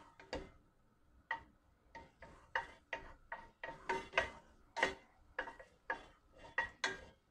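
Wooden spoon knocking against the side and bottom of a stainless-steel pot while stirring melted margarine and garlic: a run of short taps, each with a brief metallic ring, about two a second, starting about a second in.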